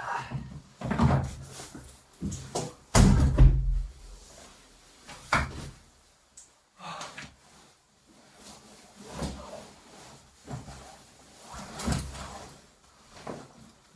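Irregular knocks and thumps of things being handled and bumped, the heaviest thump about three seconds in.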